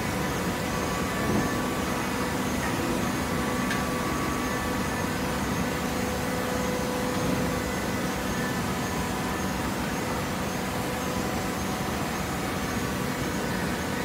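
Horizontal hydraulic baler running: a steady machine hum with several faint, steady whine tones over it.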